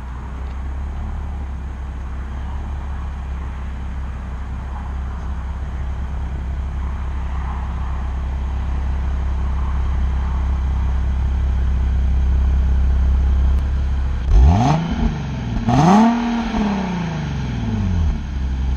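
Nissan 370Z's 3.7-litre V6 idling steadily at the tailpipes, then revved twice near the end, the pitch climbing and dropping back toward idle each time.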